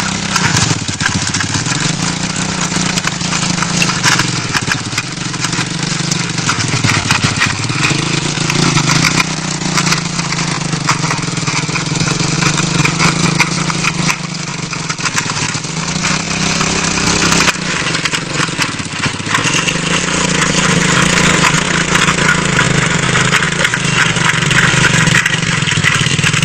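Motorcycle engine running steadily on a homemade walk-behind rotary tiller, its note sagging and recovering a few times as the tines work the soil.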